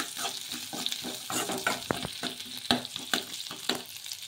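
Spatula scraping and tapping against a metal kadai as sliced onions are stirred in hot oil, with the sizzle of the frying underneath. The strokes come irregularly, several a second.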